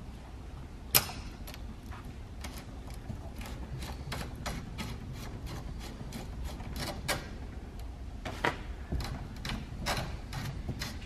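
Irregular small metal clicks and taps, one sharper click about a second in, as a hose fitting is worked onto the outlet of a wall-mounted compressed-air filter-regulator.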